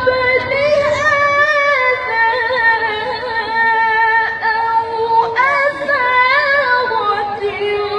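A woman reciting the Quran in the melodic tilawah style, holding long, ornamented notes that waver in pitch. The pitch rises about five seconds in, then steps down lower near the end.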